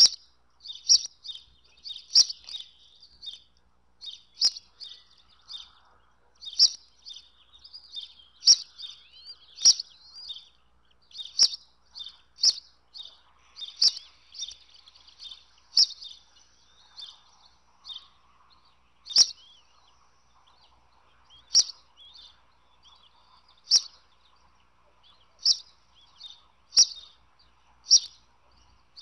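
Bald eagle chicks peeping: short, high chirps roughly once a second, with softer chattering between them, the begging calls of nestlings being fed.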